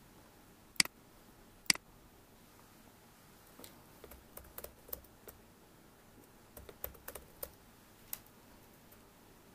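Two sharp computer mouse clicks about a second apart, then two runs of quieter keystrokes on a computer keyboard as a word is typed.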